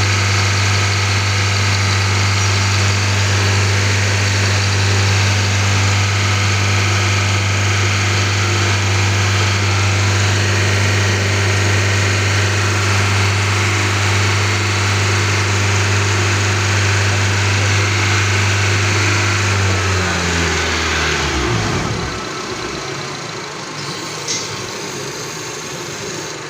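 Car engine idling, with the bad noise of its engine drive belt. About 20 seconds in, the engine is switched off and its sound falls in pitch as it winds down to a stop. A single click follows a couple of seconds later.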